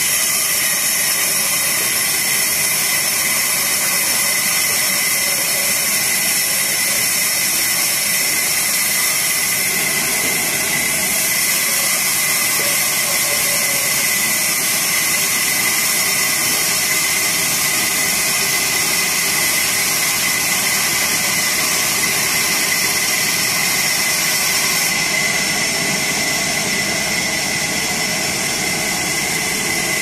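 Large vertical band saw ripping a teak log lengthwise: a steady loud whine and hiss from the blade cutting through the wood.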